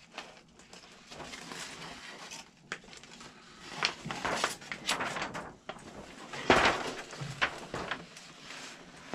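Large paper plan sheets rustling and crinkling as they are handled and turned over, in irregular crackles, with the loudest rustle about six and a half seconds in.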